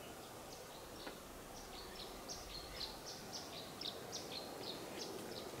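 Songbird calling in a quick run of short, high, falling chirps, several a second, starting about a second and a half in, over a low hiss of outdoor background noise.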